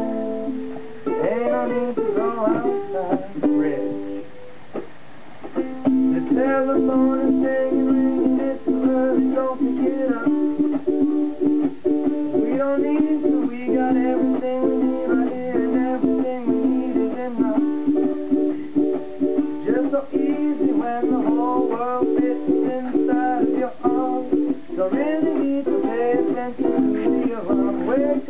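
Several ukuleles strummed together in a steady rhythm. The strumming briefly thins out about four seconds in, then comes back fuller.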